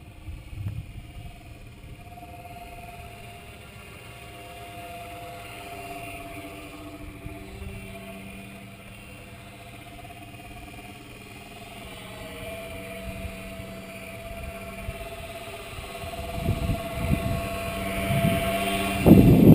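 Electric motor and propeller of a radio-controlled Magnus-effect aircraft running at high throttle on a high-speed pass: a steady hum of a few tones that grows louder near the end as the plane comes close overhead, with bursts of low rumble.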